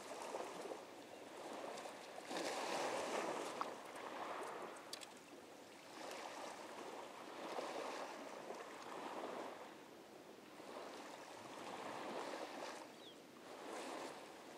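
Ohio River water washing against the bank in rushing surges that swell and ebb about every couple of seconds.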